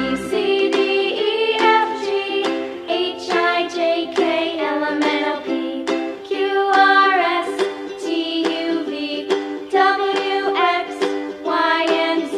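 Background music: a bright, plucked-string tune with quick, evenly spaced notes.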